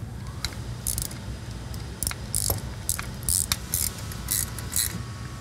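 Metal parts clicking and scraping in short, irregular bursts, about a dozen, as a steel shift spacer is fitted to a manual transmission from underneath.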